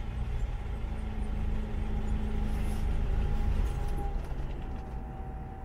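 Datsun 620's L20B four-cylinder engine running on choke after a throttle blip, a steady low rumble that sags over the last second or two as the engine starts to stall. The engine kind of stalls on you: the carburetor needs a rebuild and the fuel tank cleaning.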